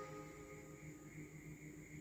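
Near silence: the faint, fading tail of background music, a few steady held tones, in a gap between music tracks.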